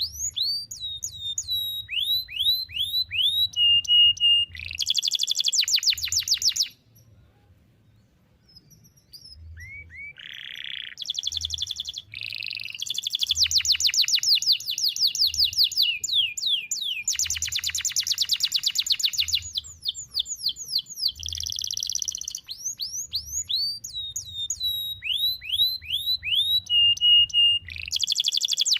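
Domestic canary singing in long runs of very rapid trills and repeated falling whistled notes. The song breaks off for a few seconds about a quarter of the way in, then resumes.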